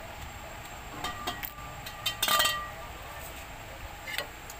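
Metal cookware clinking: a few light clicks about a second in, then a brief ringing clang a little past two seconds, like a metal pot lid being handled against the pot.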